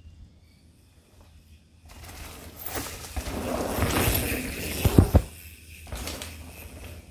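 Mountain bike rolling past on a dirt trail: a rushing tyre noise builds up, with two heavy thumps about five seconds in, then falls away.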